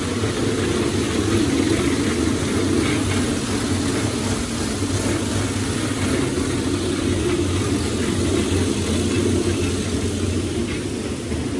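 Walk-behind concrete floor grinder grinding bare concrete with 40-grit diamonds, its motor and weighted grinding head giving a loud, steady drone. The dust-extraction hose is connected, and the concrete is extremely hard, so the diamonds cut slowly.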